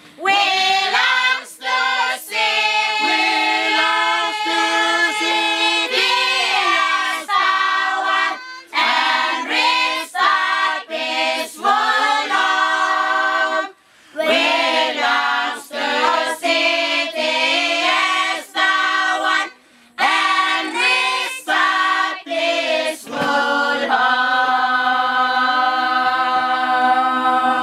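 A choir of young voices singing a Christmas carol unaccompanied, in phrases with short breaths between them, ending on a long held chord.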